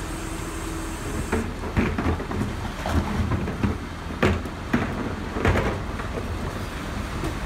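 Garbage truck engine running, with a run of irregular metal clunks and bangs from about a second and a half in until near the end.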